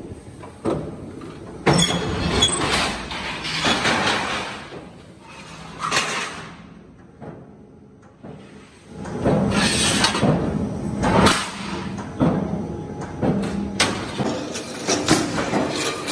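Flat steel strips and sheet clanging and scraping against metal at a sheet-metal shear: a series of loud, sudden metallic crashes and sliding scrapes, with a short lull about halfway.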